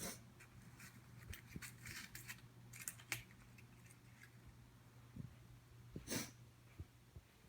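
A woman's short stifled sneeze about six seconds in, after a few seconds of light rustling and small clicks over a steady low hum.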